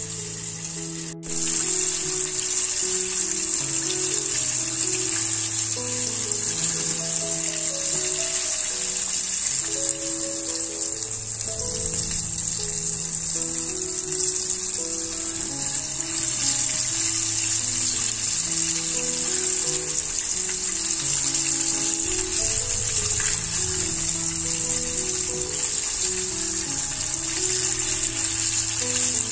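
Flour-coated chicken deep-frying in a pot of hot oil: a steady sizzling hiss. Background music with a slow melody plays throughout.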